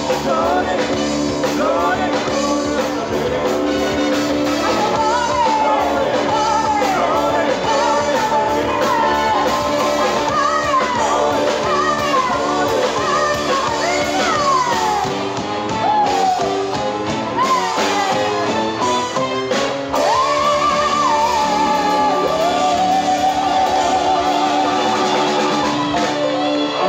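Live band with a horn section of saxophones and trumpet, electric guitar and drums playing, with a woman singing lead through a microphone over it.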